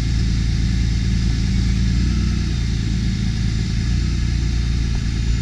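The engine of a 2013 Dodge Ram 5500 bucket truck running steadily at idle while the truck's Altec aerial boom is being lowered.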